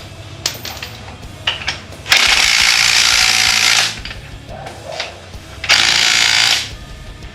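Power impact wrench hammering on an engine motor-mount bolt in two bursts, a longer one about two seconds in and a shorter one near the end, with a few light tool clicks between.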